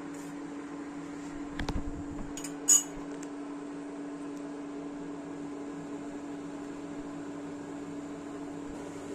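Induction cooktop running with a steady fan hum and a held electrical buzz. A few faint knocks come about a second and a half in, then one sharp click or clink.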